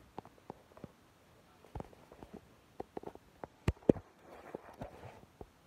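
Handling noise: scattered light clicks and taps, with two louder knocks a little after halfway through.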